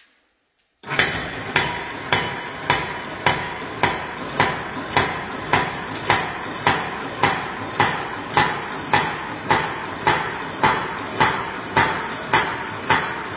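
Motorized mortar flow table running through its drops: the table is lifted and let fall in a steady series of sharp knocks, a little under two a second, over a continuous motor hum with a faint steady whine. It starts suddenly about a second in. These are the 25 drops of the flow test that spread the mortar pat.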